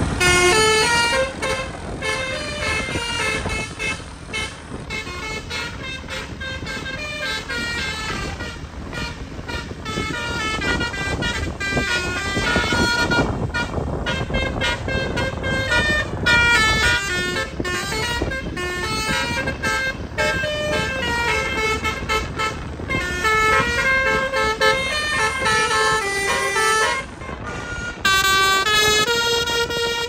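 A 'basuri' telolet horn on a customised minibus, a set of multi-tone air horns, playing a melody of quick stepped notes over engine and road noise. The tune changes near the end.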